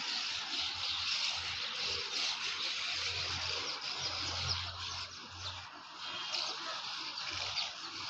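A colony of mud-nesting swallows twittering, many high calls overlapping into a constant chatter. A low rumble runs under it for a couple of seconds in the middle.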